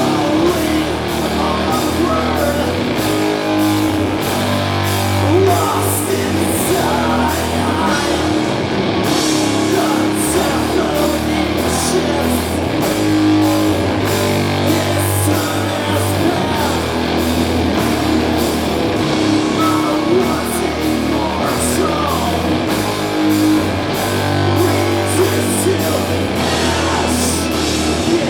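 Doom metal band playing live: distorted guitars and bass holding long, low notes in a slow riff over drums with steady cymbal strokes.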